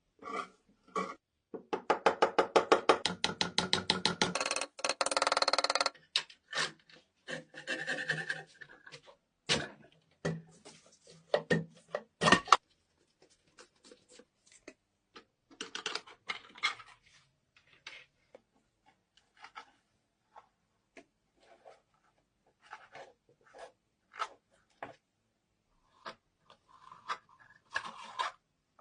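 Zippo lighter being taken apart by hand: small metal clicks, taps and scraping. About two seconds in comes a fast run of clicks lasting a couple of seconds, followed by a short scrape.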